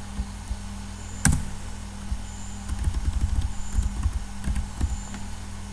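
Computer keyboard keystrokes: one sharp key press a little over a second in, then a run of quieter, irregular taps as the cursor is moved in the vim editor, over a low steady hum.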